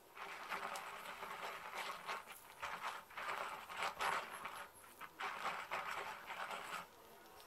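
Toffee buttercream being squeezed out of a plastic piping bag onto a cake: soft squishing and rustling of the bag and cream in uneven swells.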